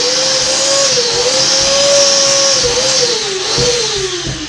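Vacuum cleaner motor running with a steady whine and hiss, its pitch wavering slightly, then winding down with a falling pitch in the last second or so after being switched off.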